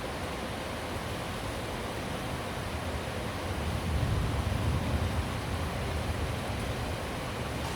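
Steady rain hiss. A low rumble swells up about four seconds in and fades again over about two seconds.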